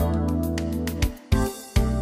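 Background music: sustained keyboard chords over a strong bass, with a brief break a little past halfway.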